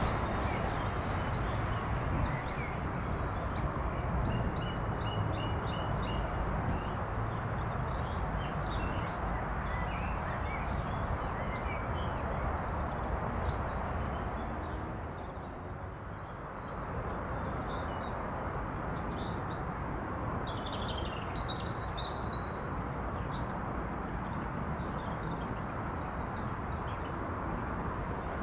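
Small birds singing and chirping, many short calls throughout, over a steady rushing background noise.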